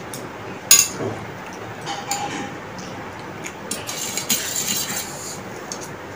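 Eating sounds: chopsticks clicking against ceramic plates, with one sharp clink a little under a second in, and noodles being slurped around four to five seconds in.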